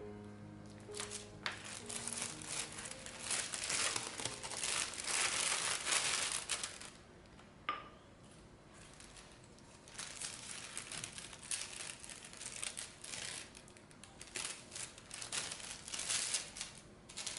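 Thin plastic food bag crinkling and rustling as it is handled and slit open, in two bouts of irregular crackle with a quieter pause between them. Background music fades out in the first couple of seconds.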